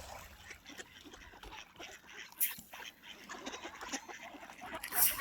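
A flock of ducks on open river water quacking and calling, many short overlapping calls with a louder call about two and a half seconds in and another near the end.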